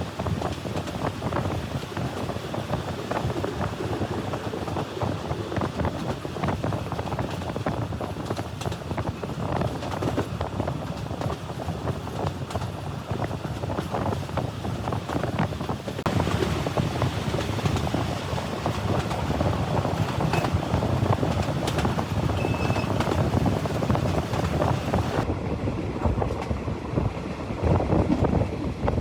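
Train running on the rails: a steady rumble with many small clanks and rattles, and wind buffeting the microphone.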